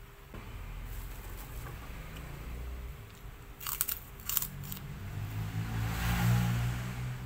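Crunchy orange crackers being bitten, with two sharp crunches a little over halfway through, then chewing. A low hum builds near the end.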